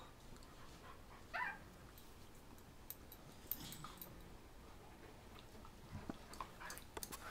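Dogs tugging on a rope toy in play: one short, faint dog vocalization about a second and a half in, then scattered faint clicks and scuffles that bunch up near the end.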